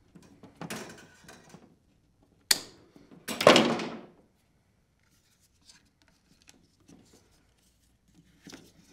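Hand wire-stripper tool working thermostat cable: a sharp snap about two and a half seconds in, then a louder, longer scrape, with quieter handling noises around them.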